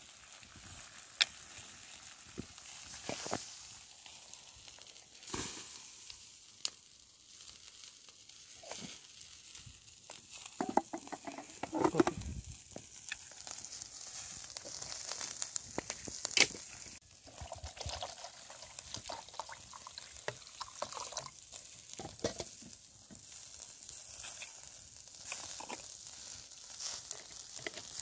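Meat skewers sizzling over wood embers: a steady hiss of cooking fat with frequent small crackles and occasional sharp pops. A louder, lower-pitched noise comes about eleven to twelve seconds in.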